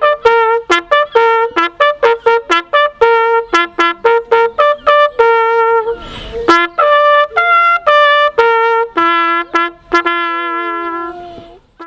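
Solo trumpet playing a quick melody of short, detached notes, ending on a long held note that slides and fades out just before the end.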